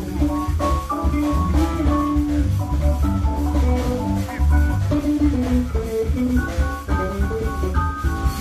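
Live band playing an instrumental: an electric guitar picks a melodic line of single notes over electric bass and a drum kit.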